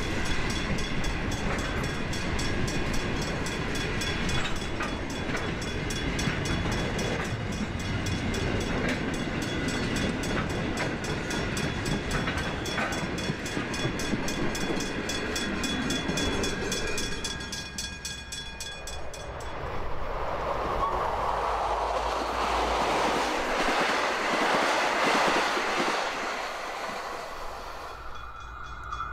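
Container freight train rolling past at speed: rumbling wheel-on-rail noise with faint regular clicks from the rail joints and several steady high ringing tones. After a break at about 18 s, a V/Line locomotive-hauled passenger train rushes past, swelling and then fading away near the end.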